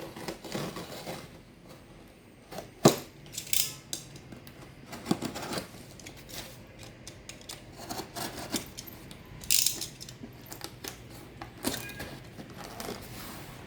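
A cardboard laptop box being opened and handled by hand: scattered clicks and knocks with short bursts of scraping and rustling packaging. The sharpest knock comes about three seconds in.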